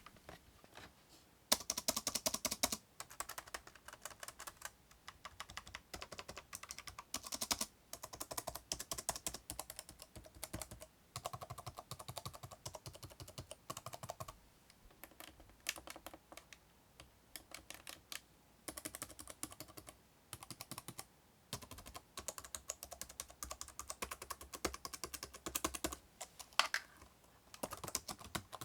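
Typing on a Lenovo ThinkPad T430's island-style laptop keyboard: quick runs of key clicks and taps, broken by brief pauses.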